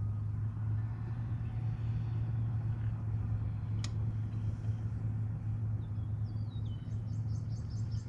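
Steady low hum of the boat's electric trolling motor running at slow trolling speed, with a bird's short run of falling chirps near the end.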